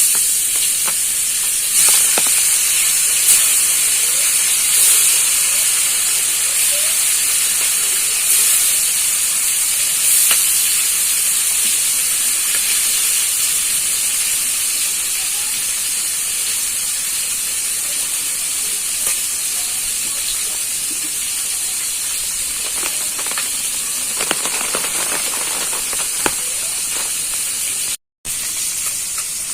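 Pieces of parshe (small mullet) fish going into hot vegetable oil in a kadai and frying with a loud, steady sizzle that starts suddenly and eases slowly. The sizzle cuts out for a moment near the end.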